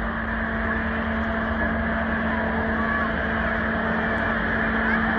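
Canadian Pacific freight cars rolling slowly past on the rails: a steady, even rumble of wheels and rail noise with a steady low hum under it.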